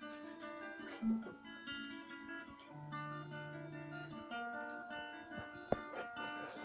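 Acoustic guitar being fingerpicked: single plucked notes in a broken pattern, ringing over one another. A sharp click near the end.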